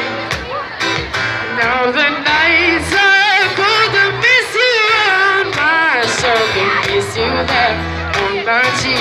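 Live pop song through a PA: a singer's wordless vocal runs and wavering held notes over guitar and a steady beat.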